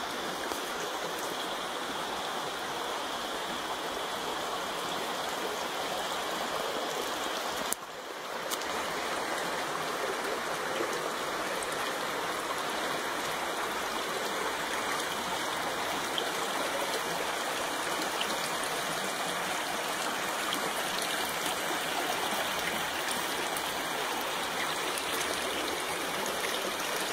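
Steady rush of running water from a stream or small waterfall. It dips briefly about eight seconds in, then comes back at the same level.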